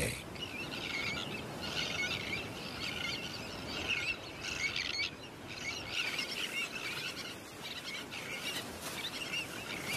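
Tern colony calling: many overlapping short, shrill calls from terns over a steady background hiss.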